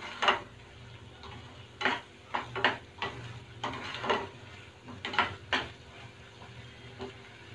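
A plastic spatula stirring and scraping thick tomato-onion masala around a nonstick pan in short, irregular strokes about once a second, the masala cooked down until its oil has separated.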